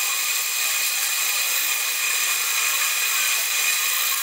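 Small metal lathe running with a brass rod turning in its chuck while a twist drill in the tailstock bores into the end of the rod: a steady whine over a high hiss, which cuts off at the very end.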